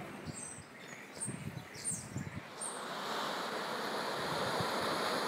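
Quiet outdoor sound with a few short, high chirps, then from about three seconds in a steady hiss of gentle surf washing onto a sandy beach.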